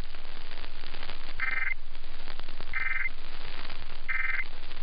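Three short Emergency Alert System end-of-message data bursts, two-tone digital chirps about 1.3 seconds apart, over steady radio hiss. They signal the end of the alert that was just read.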